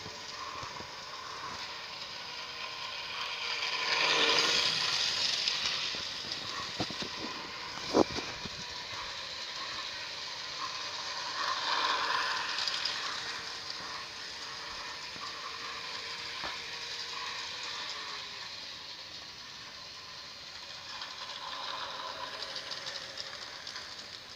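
Jouef model train, a DB class 139 electric locomotive pulling wagons, running on sectional track: a steady motor whir with wheel noise, swelling as the train passes close about four seconds in and again around twelve seconds. A single sharp click comes about eight seconds in.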